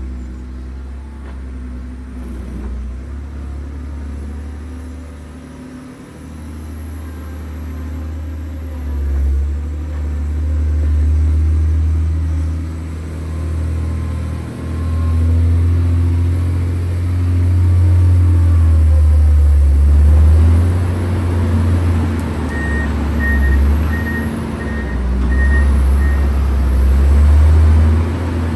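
John Deere 670 GP motor grader's diesel engine running under load, its drone rising and falling. About two-thirds of the way through, its reversing alarm beeps about twice a second for a few seconds as it backs up.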